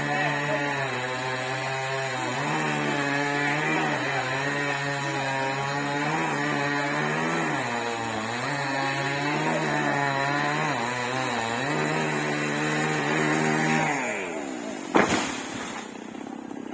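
Chainsaw running through a cut, its engine pitch dipping repeatedly, then dying away near the end. Shortly after, a single sharp crack or knock.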